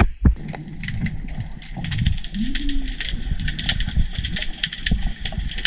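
Whale song heard underwater: low calls that rise and fall in pitch, the clearest about two and a half seconds in, over a dense crackle of small clicks in the water.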